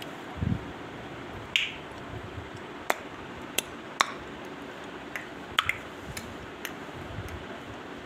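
Irregular sharp clicks and taps, about nine of them, from an Indian ringneck parakeet's beak clicking and tapping, with one dull low thump about half a second in.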